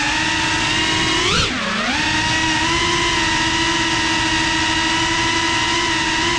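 GEPRC CineLog 35 cinewhoop's brushless motors and ducted propellers whining steadily, heard close up from the onboard GoPro. About a second and a half in, the pitch swoops up, dips low and comes back as the throttle is punched and then chopped.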